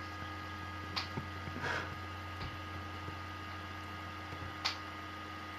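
Steady electrical mains hum on a quiet phone line left on hold, with a few faint clicks.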